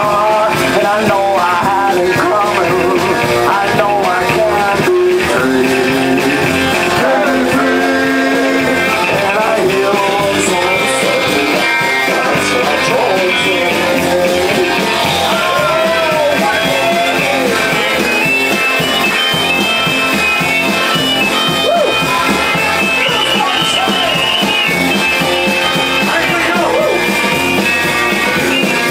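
Live rock and roll band playing: electric guitars over a drum kit, with a man singing lead.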